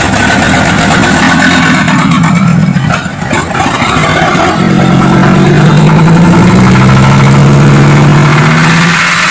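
Palm-oil truck's diesel engine racing out of control at very high revs, loud, with a short dip about three seconds in, then held flat out, its pitch sagging slightly near the end. The engine cannot be shut off and later stops on its own.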